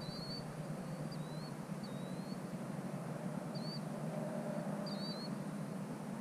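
A small bird giving short, high, squeaky chirps, about five at uneven intervals, over a steady low background rumble.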